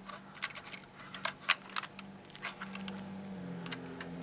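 Small sharp plastic clicks and taps as fingers work the folding seat of a 1:18 scale die-cast KITT model car, with a faint steady hum underneath in the second half.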